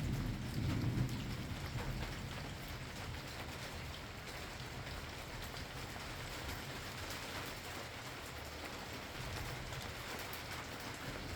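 Steady rain falling in an even hiss, with a low rumble of thunder dying away over the first couple of seconds.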